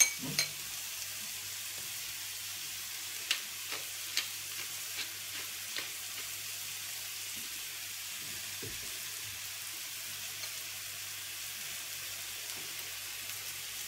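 Two beef patties sizzling steadily in a frying pan. Over the sizzle come light clinks of a metal spoon against a ceramic bowl of diced beetroot, and a run of small clicks from a pepper mill being ground a few seconds in.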